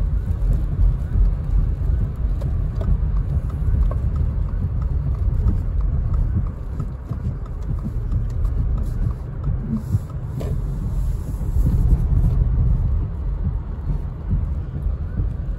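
Car driving on a wet, slushy road, heard from inside the cabin: a steady low rumble of tyres and engine.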